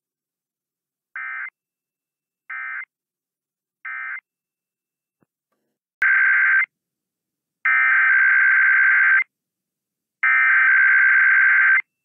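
Emergency Alert System SAME digital data bursts, a warbling two-tone data signal. First come three short end-of-message bursts about a second apart, closing a Required Weekly Test. After an abrupt cut come three longer header bursts about a second apart that open the next weekly test; the first of these is cut short.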